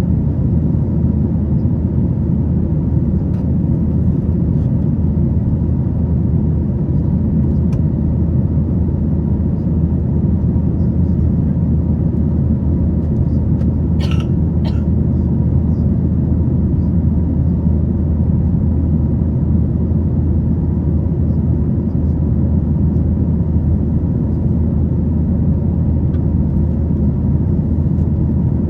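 Steady low rumble of engine and airflow noise heard inside the rear cabin of a Boeing 737-900ER, with a brief click or clatter about halfway through.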